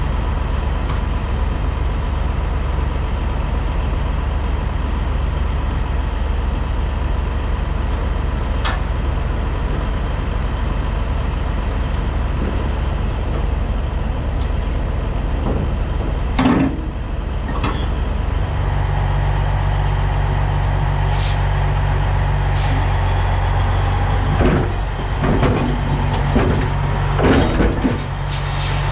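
Heavy-truck diesel engine of a Peterbilt 362 cabover idling steadily. Metal knocks and clanks sound over it, one about sixteen seconds in and several more near the end.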